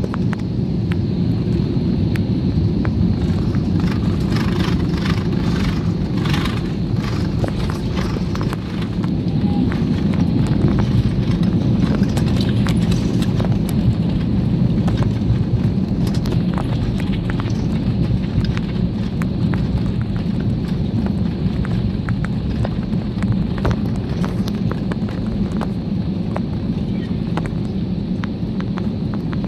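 Airliner cabin noise during touchdown and landing roll: a loud, steady low rumble from the wheels and engines, with many sharp knocks and rattles, thickest in the first third. The rumble swells for a few seconds about a third of the way in as the jet brakes on the runway.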